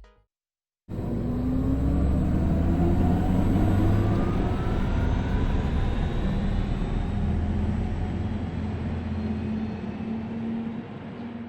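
Audi e-tron GT electric car driving: a faint electric-motor whine rising in pitch as it accelerates, over a steady low rumble of tyres and road, starting about a second in.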